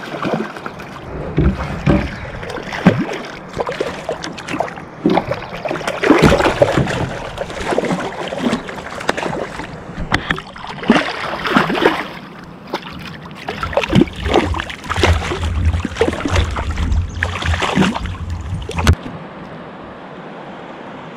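Hooked whitefish thrashing and splashing at the surface, with water sloshing against the microphone at the waterline: a long run of irregular splashes. It ends with a sharp knock, and the water goes quieter.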